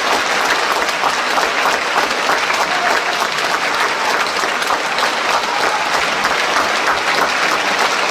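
Theatre audience applauding steadily: dense, even clapping of a large crowd at the end of a ballet number.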